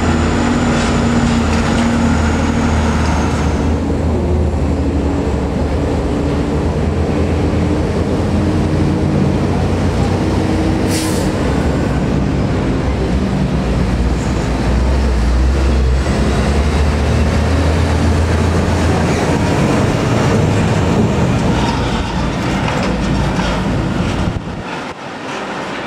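Heavy diesel trucks passing slowly close by with a steady low engine rumble, the last a Hino 500 tractor unit hauling a loaded tanker semi-trailer. There is a brief hiss about eleven seconds in, and the rumble eases near the end.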